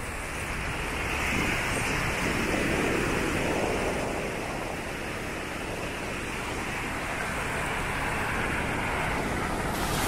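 Ocean surf washing on a sandy beach, mixed with wind on the microphone. The wash swells about a second in, eases off in the middle and builds again near the end.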